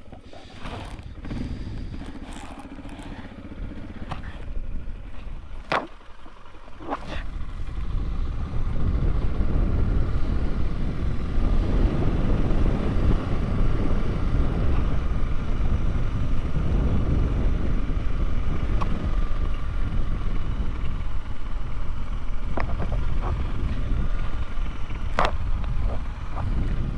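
Suzuki DR650 single-cylinder dual-sport motorcycle being ridden. The first few seconds are quieter, with a couple of knocks. About eight seconds in, a loud, steady low rumble sets in and carries on, with a few sharp clicks near the end.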